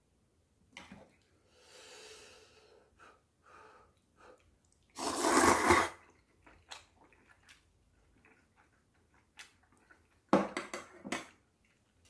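A person slurping clam kalguksu noodles, loudest about five seconds in, with soft chewing and small clicks of chopsticks and tableware around it. A second burst of sharp sounds comes about ten seconds in.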